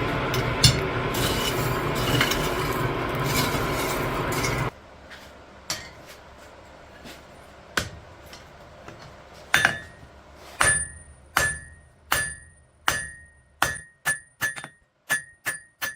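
A steady rushing noise with a few clinks cuts off abruptly about five seconds in. A few light taps follow, and from about ten seconds in a blacksmith's hammer strikes steel on the anvil, each blow ringing, the blows coming faster to nearly two a second.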